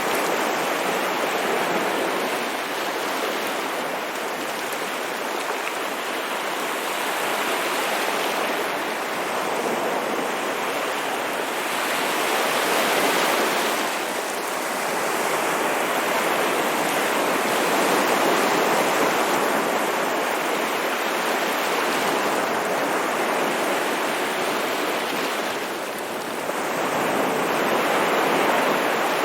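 Ocean surf washing onto a shore: a continuous rushing hiss of water that swells and eases slowly every several seconds.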